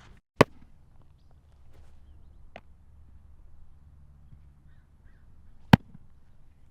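Baseball smacking into a leather glove in a game of catch: a loud, sharp smack about half a second in, a fainter one near the middle, and another loud one near the end, over a low steady background hum.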